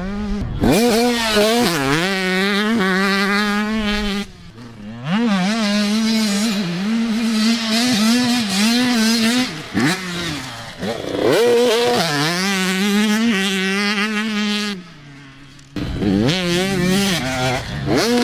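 Motocross dirt bike engine revving hard as it is ridden round a dirt track, its pitch climbing and falling again and again with the throttle and gear changes. It drops away briefly twice, about four seconds in and again near fifteen seconds.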